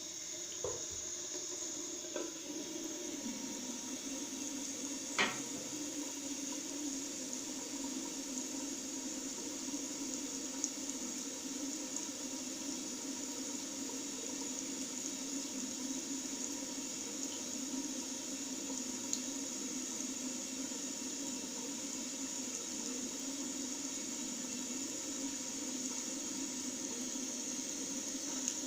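Tap water running steadily into a washbasin: an unbroken splashing rush, with a few faint ticks, the sharpest about five seconds in.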